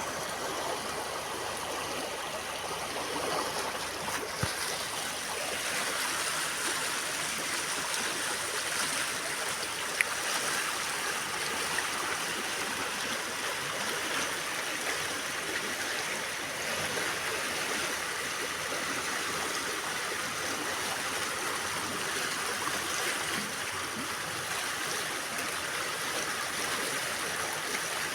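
Steady rushing of running water, as from a stream, with a few faint clicks.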